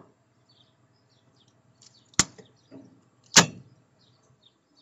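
Two sharp knocks a little over a second apart, with faint bird chirps in the background.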